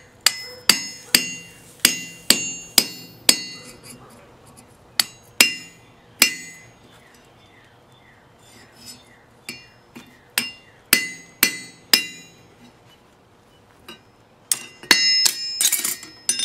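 A ball-peen hammer strikes a hand-forged hot punch, driving it through red-hot steel on an anvil, and each blow rings. There is a run of about seven quick blows, a pause, three more, then a series of lighter blows, with a denser clattering burst near the end.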